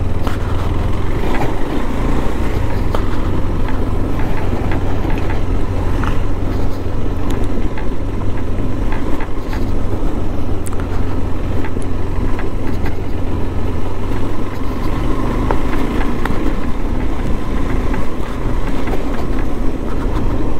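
KTM 390 Adventure's single-cylinder engine running at low road speed, heard from the rider's seat as a steady low hum mixed with wind and road noise, with scattered small clicks and knocks from the rough surface.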